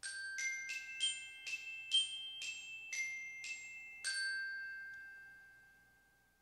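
Short bell-like tune on a glockenspiel-type mallet instrument: about ten struck notes, roughly two a second, ending on one long note that rings and slowly fades away.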